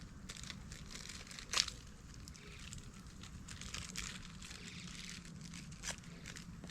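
Inflatable PVC boat crinkling and rustling as its skin flexes and rubs while someone tests it with their weight, with a few sharp clicks, the loudest about a second and a half in.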